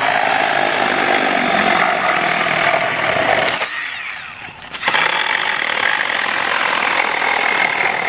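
Milwaukee battery-powered mini chainsaw cutting through a wooden pallet board. The chain stops briefly about three and a half seconds in, then the saw runs again as it cuts into a second board.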